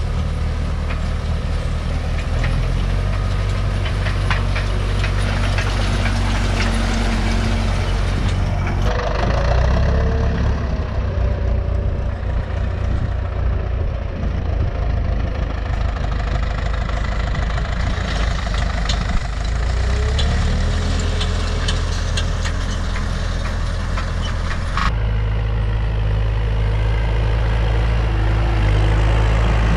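Diesel farm tractor engines running steadily while pulling meadow harrows across grassland. The engine note changes abruptly a few times, and there are scattered clicks and rattles.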